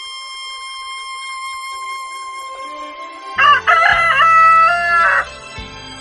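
Desi rooster crowing once, a loud cock-a-doodle-doo that starts about three and a half seconds in and lasts about two seconds. Background music with a long held note plays under it.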